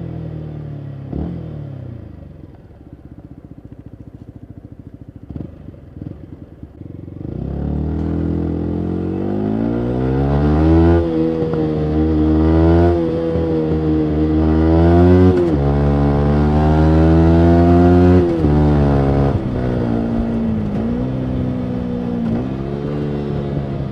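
2019 Yamaha MT-125's single-cylinder 125 cc engine through a full Akrapovic exhaust. It winds down off the throttle to a low, quieter run, with a few sharp pops from the exhaust. About seven seconds in it accelerates hard, the pitch climbing through four upshifts, each a brief dip, then settles to a steady cruise.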